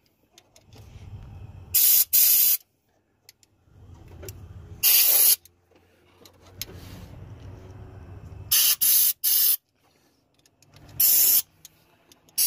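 Compressed-air blow gun giving short blasts of hiss into the head bolt holes of an engine block, blowing out trapped water. There are about seven blasts, some in quick pairs or clusters.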